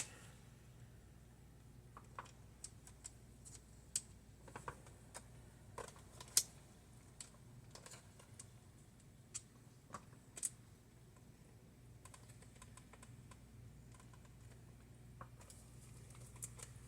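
Scattered light clicks and taps, a dozen or so at irregular intervals, from small screws and parts being handled on a laptop, over a faint steady hum.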